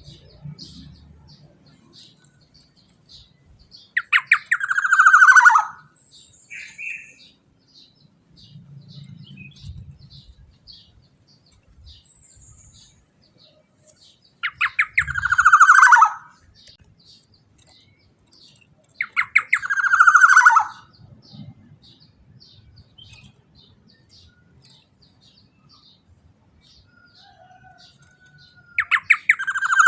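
Black-naped oriole (kepodang emas) calling: four loud, harsh calls several seconds apart, each a rapid run of notes falling in pitch and lasting under two seconds. Faint, quick high chirps continue in the background between them.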